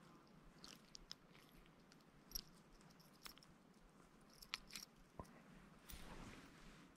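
Near silence, with a few faint scattered clicks and ticks.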